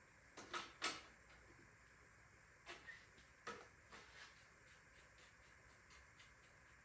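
A few sharp clicks and taps of small metal bicycle parts and hardware being handled during disassembly, then faint, fairly even ticking.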